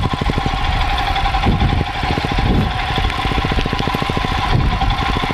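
Royal Enfield Himalayan's single-cylinder engine running at low speed over rough ground, its exhaust beating in steady, rapid pulses.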